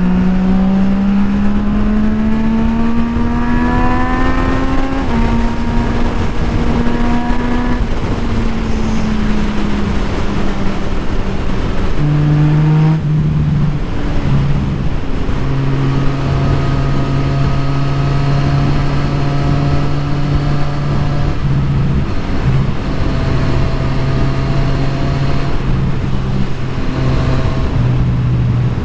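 Motorcycle engine pulling up through the revs for about five seconds, then holding steady. About twelve seconds in the revs drop sharply, and it then runs at steady revs with several brief dips, over a constant rushing noise.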